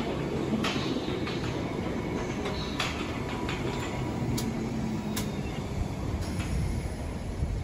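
London Underground 1972 Stock train running past: a steady rumble of wheels and running gear, with scattered sharp clicks as the wheels pass over rail joints.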